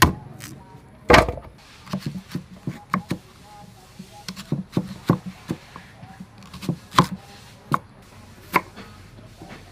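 A cleaver slicing firm green mango on a round wooden chopping board: an irregular string of sharp knocks as the blade hits the board, about two or three a second, with a loud one about a second in.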